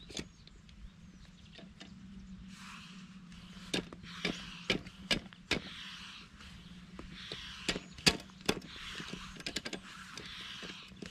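Sharp clicks and knocks of kayak parts being handled and fitted during assembly, in a quick run of about five about halfway through and three more later. Behind them, a hand pump inflating a SUP board hisses in regular one-second strokes.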